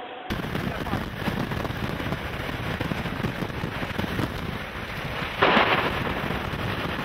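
Heavy storm noise from the thunderstorm around the tornado: rain and wind hitting the microphone as a dense, steady rush. A brief louder burst comes about five and a half seconds in.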